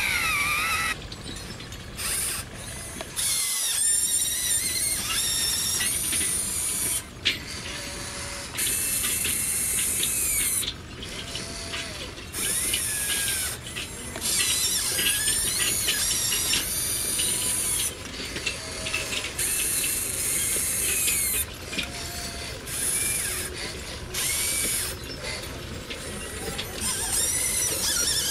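Remote-controlled model excavator's motors and hydraulics working in short spells: whines that rise and fall in pitch, with a high hiss that cuts in and out every second or two as it moves.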